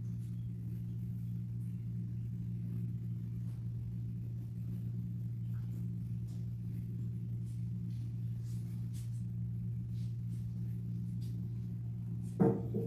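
Steady low electrical hum, with a few faint clicks and one sharper knock near the end as items are handled at the altar.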